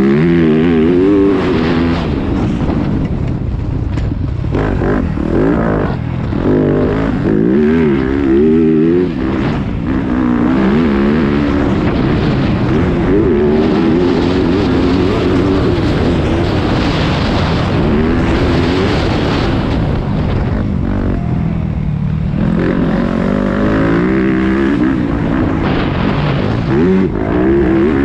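Yamaha YZ250F four-stroke single-cylinder motocross engine under hard riding, its pitch climbing and dropping over and over as the throttle is opened and closed and gears are changed.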